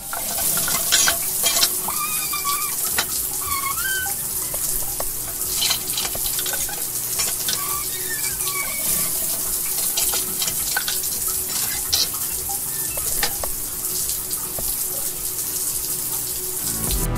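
Water running and splashing steadily, with a few short, high chirps mixed in.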